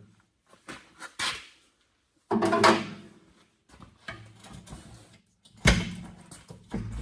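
Clunks and knocks of metal and rubber as a tire is worked off its rim on a tire changer machine, with a louder clattering burst about two and a half seconds in and a sharp knock near the end.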